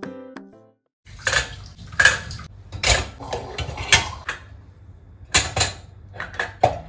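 Dishes and cutlery clattering as they are handled: a run of sharp clinks and knocks, about one a second.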